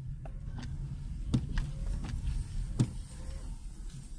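Car driving along a winding road, heard from inside the cabin: a steady low rumble of engine and road noise, with scattered short clicks and knocks, two louder ones about a second and a half and three seconds in.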